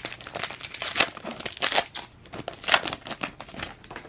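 Plastic wrapper of a basketball card pack crinkling and crackling as it is handled and opened.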